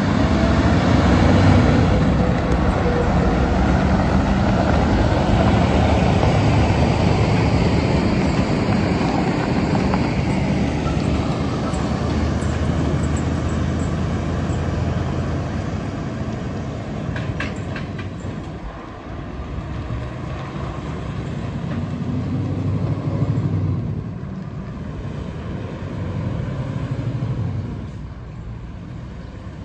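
Heavy diesel engine running under load, its pitch rising and falling as it works. It is loudest in the first half and fades after about eighteen seconds in, with a few sharp clicks partway through.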